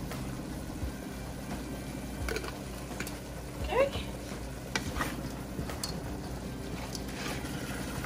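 A cooking utensil clicking and knocking against a pot several times over a steady low hum, with a short voice-like sound about four seconds in.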